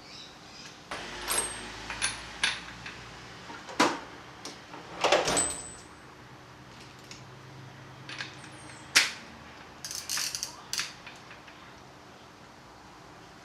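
Metal tools and parts being handled: a series of separate clinks and knocks at irregular intervals, a few of them with a short metallic ring.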